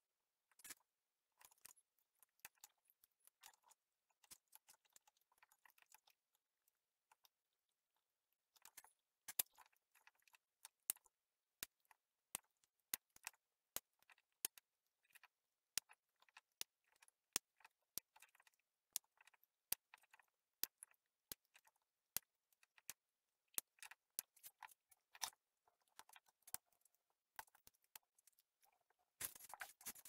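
Faint, irregular light clicks and small metallic ticks of small tools and loose parts being handled on a work mat. They are sparse at first and come more often, about one or two a second, from about nine seconds in.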